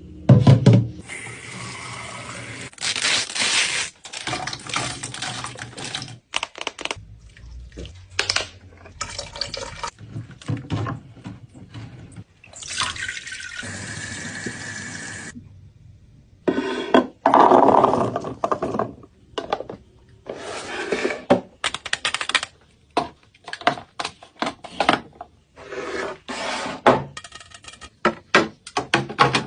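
Restocking a fridge: liquid is poured into containers in a few stretches, between many short clicks and knocks of containers and items being handled and set down.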